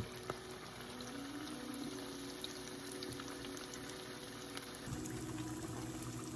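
Batter-coated sausage links deep-frying in hot oil: a steady bubbling sizzle with small scattered crackles, over a faint steady hum.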